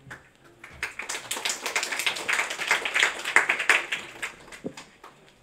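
Small audience clapping: many separate claps that build about a second in and die away after about four seconds.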